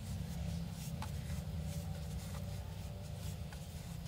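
Soft rubbing and rustling of chenille yarn being wrapped by hand around the pegs of a plastic round knitting loom, with a few faint clicks, over a steady low hum.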